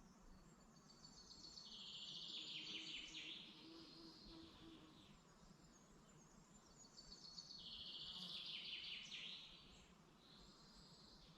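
Faint forest birdsong: a songbird sings twice, each phrase a rapid trill of about two and a half seconds that falls in pitch. Softer chirps of other birds and a low background hum sit beneath it.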